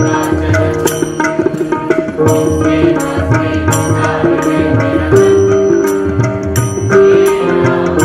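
Indian music: a held melody over a tabla-like drum pattern, with small hand cymbals striking about every three-quarters of a second.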